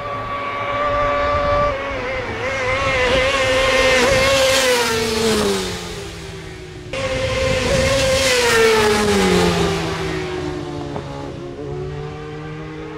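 Racing motorcycles passing at speed on a closed road circuit, the engine note high and then falling as each goes by. A second pass cuts in suddenly about seven seconds in, and a lower engine note carries on near the end.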